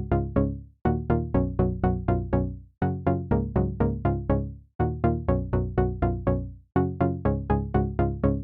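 Background music: a melody of short notes that fade quickly, played in repeating phrases about two seconds long with a brief gap between phrases.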